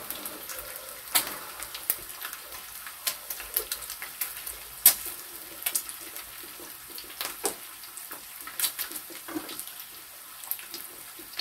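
Pork belly sizzling on a hot grill pan, with many irregular sharp crackles and pops from the rendering fat over a light steady hiss.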